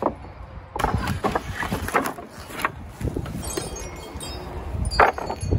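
Wooden boards and planks knocking and clattering against each other and the pallets as lumber is handled, in a burst of sharp knocks about a second in and another near the end. A wind chime rings faintly in the background.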